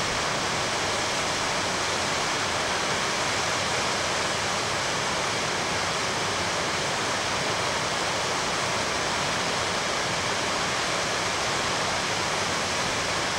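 Shallow river running over stones: a steady, even rush of water.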